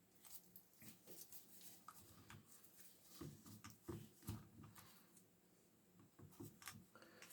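Faint, irregular small clicks, taps and rustles of chainsaw engine parts being handled during reassembly.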